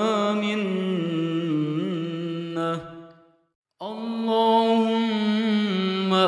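A voice chanting an Arabic dua in long, drawn-out melodic notes. It trails off about three seconds in, and after a short silence the chant resumes on a new line of the supplication.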